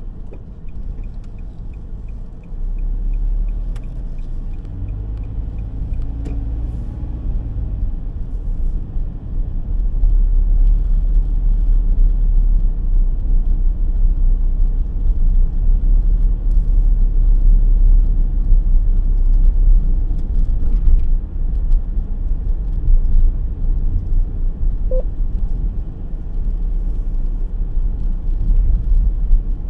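Inside a moving car: a steady low rumble of road and engine noise, louder from about ten seconds in, with a light regular ticking during the first few seconds.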